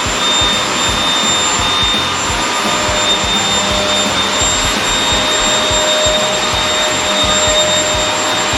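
Vacuum cleaner running steadily at full suction, with a high, steady motor whine over the rush of air and irregular low bumps as the nozzle is worked over the floor.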